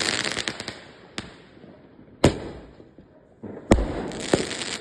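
Fireworks bursting: a crackle dying away, then four sharp bangs, the loudest about three-quarters of the way in and followed by a spray of crackling.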